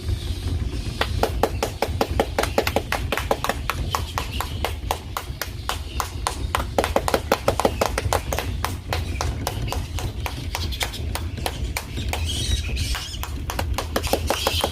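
Flying foxes (fruit bats) calling: a dense, irregular run of short clicks and chirps, several a second, over a steady low rumble.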